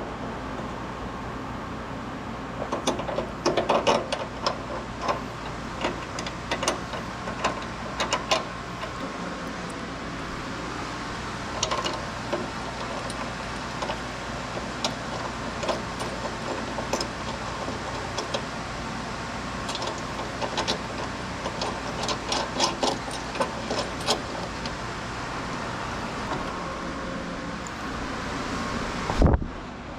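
Steady low mechanical hum under irregular clicks and knocks, with a single low thump about 29 seconds in.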